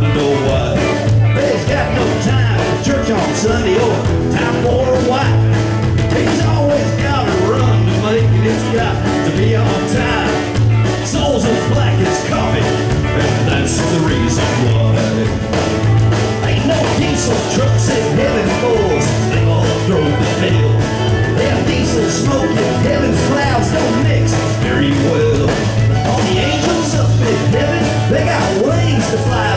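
Live band playing an up-tempo instrumental intro through a club PA: strummed acoustic guitar over a steady, pulsing upright-bass line and drums.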